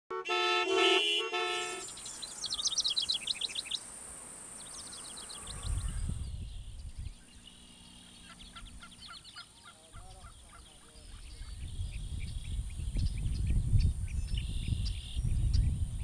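Morning birdsong in open country: fast trilled songs in the first six seconds, then scattered chirps and short calls, with low wind rumble on the microphone rising and falling through the second half. A brief chord of several held tones opens it.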